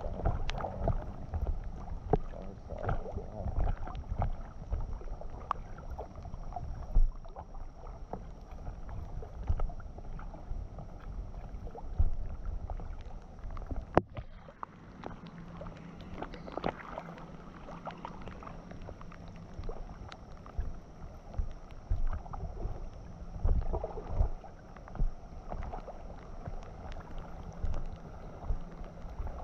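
Fast floodwater sloshing and splashing against the hull of an inflatable kayak drifting downstream, an irregular churning with many small slaps and a sharp knock about halfway through.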